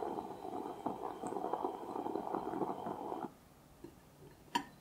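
Bialetti Moka Express stovetop espresso pot gurgling and sputtering as the brewed coffee rises into the upper chamber; the gurgle stops abruptly about three seconds in. Near the end a sharp clink of a glass bowl against a ceramic plate.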